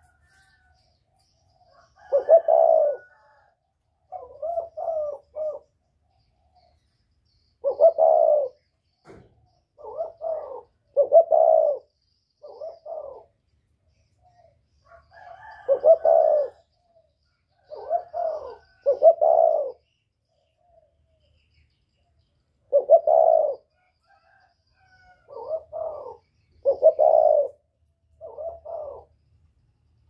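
Spotted dove cooing its song: about four phrases of several deep coo notes each, with short pauses between the phrases.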